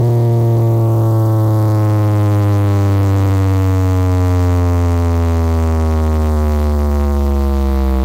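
Car sound system playing one loud, low bass tone through its speakers, gliding slowly and steadily down in pitch, thick with overtones.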